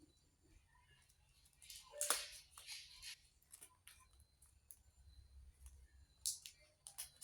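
Crinkly plastic snack packet being handled: a burst of crackling about two seconds in that lasts about a second, then a few sharp clicks near the end.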